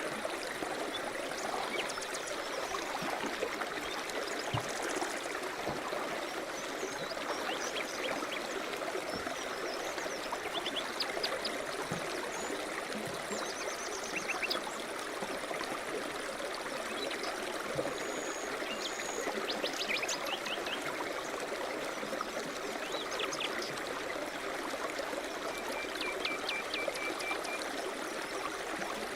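River rapids rushing steadily, with scattered short bird chirps and calls over the water, including a couple of short whistles and a brief trill near the end.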